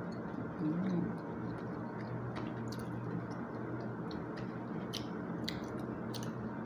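A person chewing food, with a scattering of small sharp clicks and a short low hum about a second in, over a steady low room hum.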